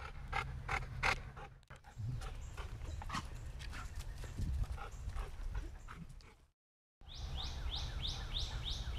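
A dog panting as it walks, with footsteps crunching through dry leaf litter. Near the end comes a quick run of about six high rising chirps.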